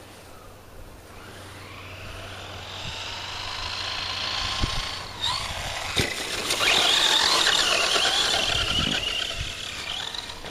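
Electric motor whine of a Traxxas Stampede 4x4 RC truck, running a Turnigy 3665 brushless motor on a 3S LiPo, as it drives over snow. The whine builds over the first few seconds. There is a sharp knock about six seconds in, then the whine is at its loudest as the truck accelerates hard, easing near the end.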